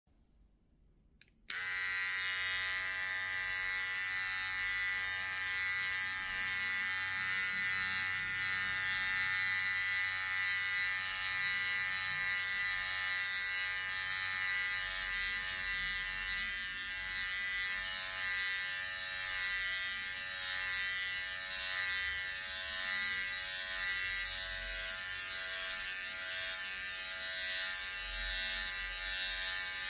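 Electric hair clippers switched on with a click about a second and a half in, then running with a steady buzz.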